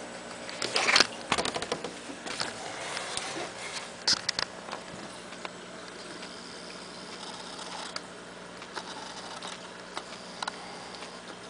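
Handling noise: scattered clicks and rustling, with a dense cluster about a second in and a few sharp ticks later, over a steady low hum.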